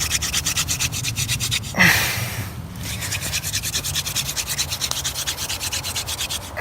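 Hand-drill fire set: a wooden spindle twirled fast between the palms, grinding in the notch of the hearth board with quick, even rubbing strokes, to build heat and smoking dust toward an ember. The strokes break off briefly about two seconds in, then start again.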